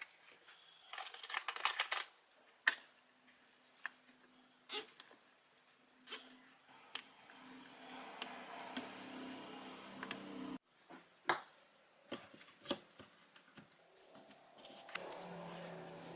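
Sharp clicks and taps of small parts being handled, with a small electric motor running steadily for several seconds. The motor cuts off suddenly and starts again near the end.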